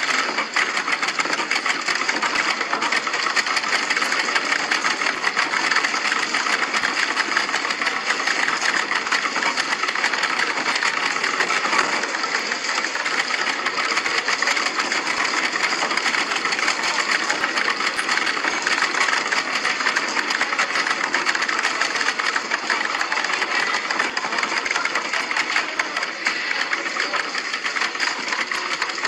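Office typewriters clattering, a dense, continuous rattle of rapid keystrokes without a pause.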